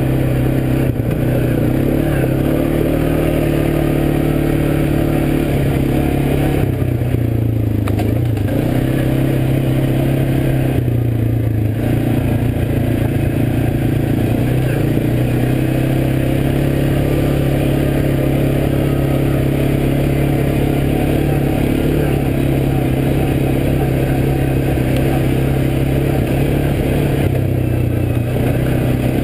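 ATV engine running under steady throttle while riding a rough dirt trail. The engine note drops briefly twice, about seven and eleven seconds in, as the throttle eases.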